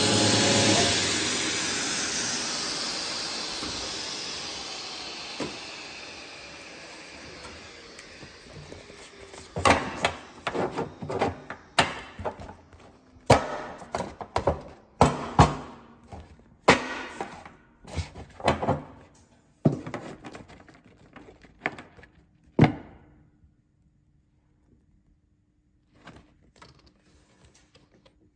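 PIT STOP mini speed creasing and perforating machine's suction-feed blower running down after being switched off: a hiss with a falling whine that fades over several seconds. Then a run of sharp knocks and taps as the creased paper sheets are handled.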